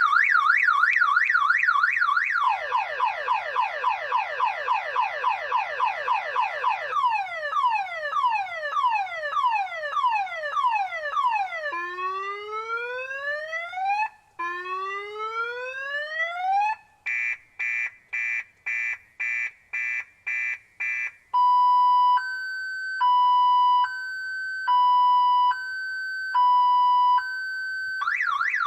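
Car alarm siren cycling through its tone sequence: a fast up-and-down warble, rapid falling chirps, slower falling sweeps, two long rising whoops, quick on-off beeps, and a two-note high-low alternation, with the warble starting again near the end.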